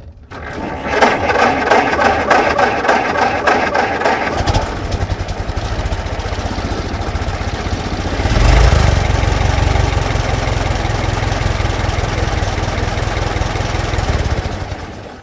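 Old car's engine being cranked by the starter in rhythmic strokes for about four seconds, then catching and running. It gets louder about eight and a half seconds in, holds steady, and stops near the end.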